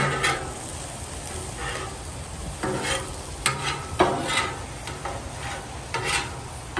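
Chopped steak and onions sizzling on a flat-top griddle while a metal spatula scrapes and clacks against the griddle surface. The strikes come at irregular intervals, about one a second, over a steady frying hiss.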